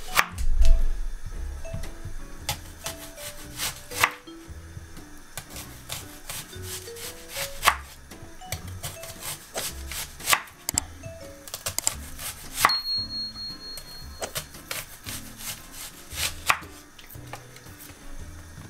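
Chef's knife slicing an onion into rings on a bamboo cutting board: irregular knocks of the blade hitting the board, roughly one every second or so. Light background music plays underneath.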